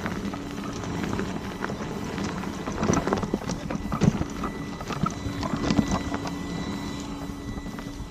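Begode electric unicycles riding fast over a rough dirt trail: tyre rumble with frequent knocks and rattles from bumps and loose stones, the sharpest about three and four seconds in. A faint steady hum from the wheel motor runs underneath.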